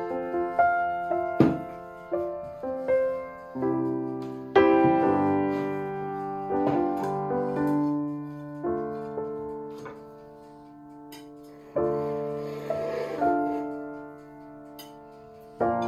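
Background music: a slow solo piano piece, notes and chords struck and left to ring out, with a softer, sparser passage about two thirds through.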